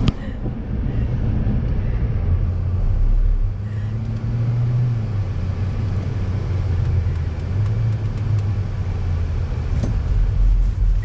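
Hyundai Elantra's engine and road noise heard from inside the car: a steady low drone that swells and eases a little as it is driven down a snowy road.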